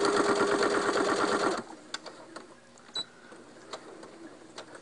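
Electric sewing machine stitching at a steady speed, its motor hum and needle strokes in a fast, even rhythm, stopping abruptly about one and a half seconds in. A few light clicks follow.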